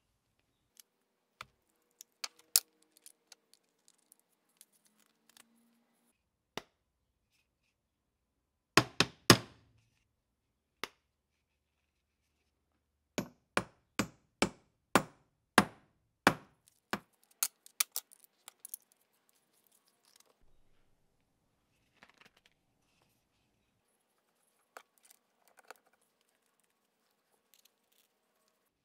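Old split-head mallet striking a metal stake: three hard blows, then after a pause a run of about a dozen sharp blows at roughly two a second. Quieter clicks of the mallet's screw-on faces being handled and swapped come before and after.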